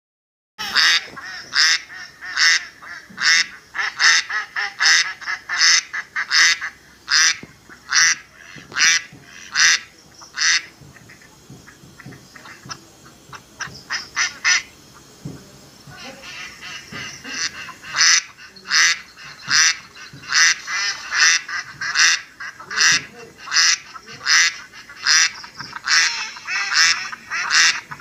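A flock of domestic ducks quacking over and over, many loud, short quacks in quick runs, with a quieter lull in the middle before the quacking picks up again.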